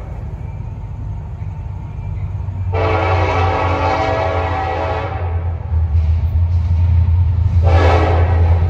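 Union Pacific SD70ACe diesel locomotive's air horn sounding one long blast of about two seconds, then a short blast near the end, part of the long-long-short-long grade crossing signal. Underneath runs the low rumble of the approaching locomotive, growing louder.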